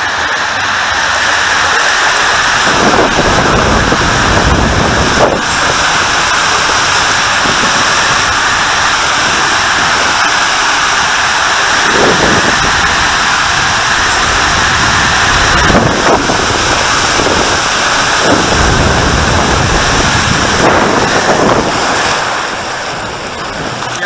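Loud, steady rush of water and air inside an enclosed WhiteWater West Giant AquaTube water slide as a rider slides down, with several low surges along the way. The noise drops off near the end as the run finishes in the pool.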